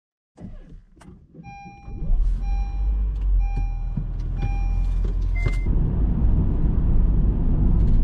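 Inside a car: a few clicks, then a low engine rumble comes up about two seconds in and holds as the car pulls away. Over it a dashboard warning chime sounds four times, about once a second, followed by one short higher beep.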